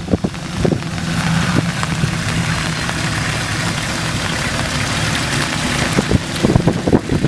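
Car engine running at steady revs, with wind noise on the microphone. Near the end it gives way to knocks and splashy noise.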